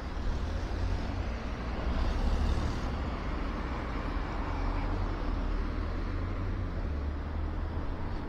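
Road traffic on a city street: cars passing with tyre and engine noise over a steady low rumble, swelling about two seconds in.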